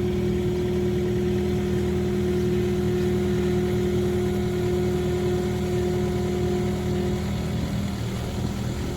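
Engine running steadily at an even speed; one of its higher tones drops away about seven seconds in.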